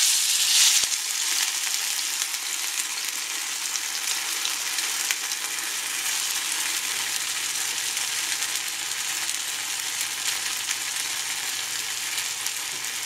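Thick pancake batter, pre-cooked by mixing it with boiling water, frying in hot olive oil in a pan. The sizzle starts suddenly as the batter goes in, is loudest for about the first second, then settles to a steady sizzle.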